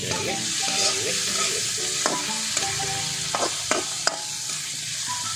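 Tomatoes, onions, garlic and chili sizzling in a wok while a steel spatula stirs and scrapes them, with a few sharp clacks of the spatula on the wok between about two and four seconds in.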